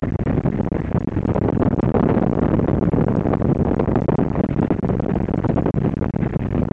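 Rushing airflow in the cockpit of an L-13 Blaník two-seat glider in flight, buffeting the microphone unevenly, with no engine.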